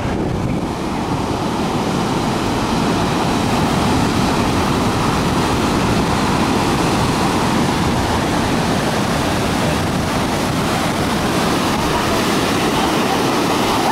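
Ocean surf breaking and washing up a sandy shore: a steady, loud rush of water.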